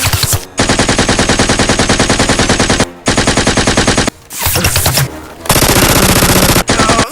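Rapid automatic gunfire in four long bursts with brief pauses between them, a machine-gun sound effect laid over a Nerf blaster fight.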